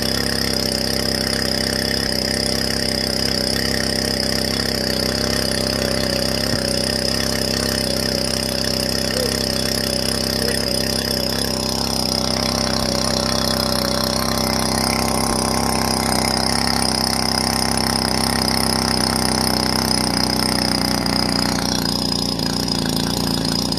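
Small engine of a floating water pump running steadily, with the hiss and splash of the water jet from its outlet hose landing on the pond.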